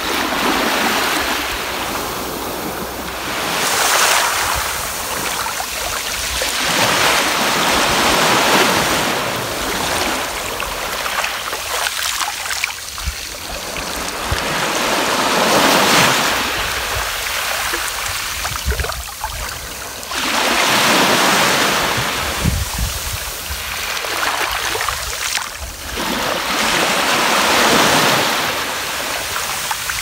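Small sea waves breaking and washing up over a pebble beach, the surge swelling and drawing back every few seconds.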